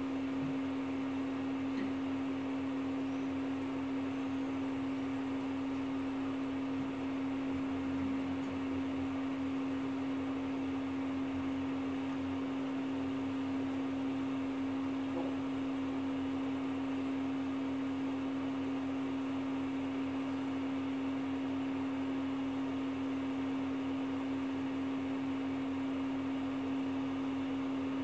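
A steady hum at one low pitch, unchanging throughout, over a faint hiss.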